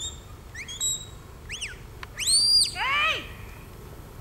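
Shepherd's whistle commands to a working sheepdog: a few short chirps, then about two seconds in a longer, louder whistle that rises, holds and falls. A brief falling call from a voice follows.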